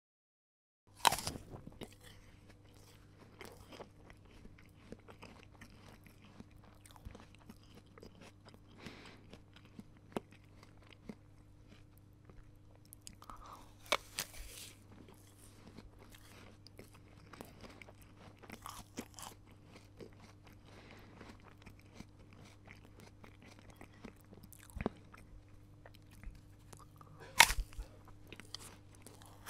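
A person biting into a crisp apple and chewing it: a loud crunching bite about a second in, another about halfway and another near the end, with many smaller crunching chews in between.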